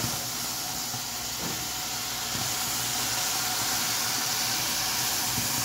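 Water poured from a kettle into a hot aluminium pressure cooker of sautéed rice and broccoli leaves, hissing steadily as it hits the hot pan and rice.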